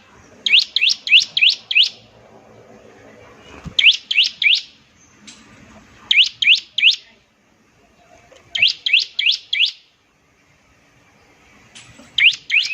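Bar-winged prinia (ciblek) singing in repeated bursts of four to six quick, shrill upward-sweeping notes, one burst every two seconds or so.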